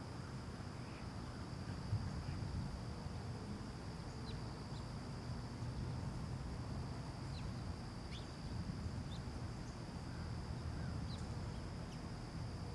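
Residential outdoor ambience: a steady high-pitched insect drone over a low rumble, with a handful of short bird chirps scattered through.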